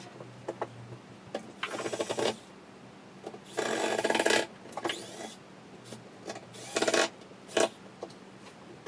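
A cordless screwdriver driving screws into chipboard furniture panels in about four short bursts, the longest and loudest lasting about a second near the middle, with rubbing of the boards between them.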